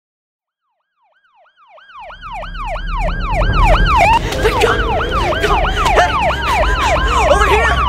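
Several emergency-vehicle sirens on a fast yelp, sweeping up and down about three times a second, with a slower wail gliding beneath and a low engine rumble. They fade in from silence about a second in and are loud within a couple of seconds.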